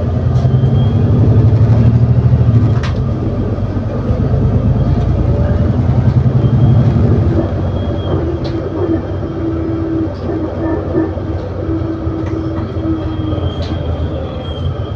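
ADL Enviro400 City bus engine pulling hard through its Voith automatic gearbox, heard from on board. It is loudest in the first half, then eases off while a steady whine comes through for several seconds. Short rattles and clicks from the interior are scattered throughout.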